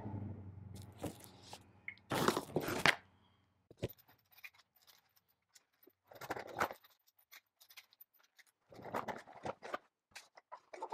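Cardboard box and foam packaging being handled as a faucet and its supply hoses are packed back in: scraping and rustling in short bursts, loudest about two to three seconds in, with scattered small clicks and knocks.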